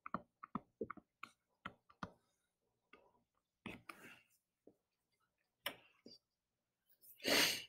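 Faint, quick taps and clicks of handwriting on a computer screen, about a dozen in the first two seconds and then a few scattered ones. A short breathy hiss comes near the end.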